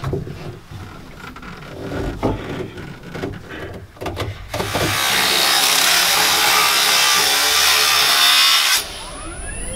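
Angle grinder cutting steel on the truck's frame: a loud, steady hiss that starts about four and a half seconds in and stops suddenly. Before it, knocks and rattles of someone moving about in the cab; after it, rising whooshing tones.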